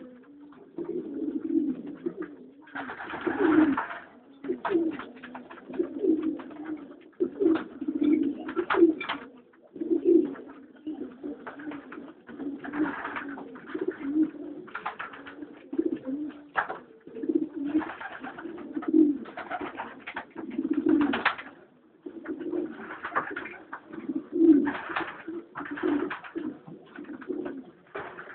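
Several domestic pigeons cooing over and over in a loft, a cock's courtship cooing as hens and cocks are paired up, with short bursts of noise now and then.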